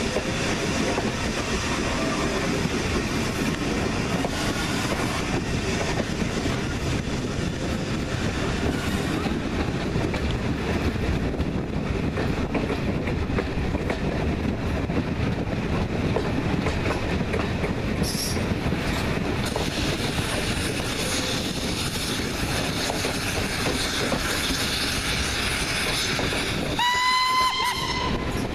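Steady running noise of a steam-hauled passenger train heard from an open carriage window: wheels on the rails and carriage rumble. Near the end the locomotive's steam whistle sounds once, for about a second and a half.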